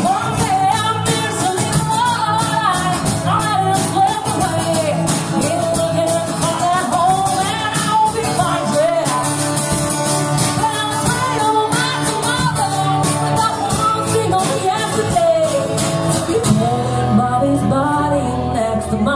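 A small band playing a rock song: strummed acoustic guitar and a drum kit keeping a steady beat, with a sung melody over them.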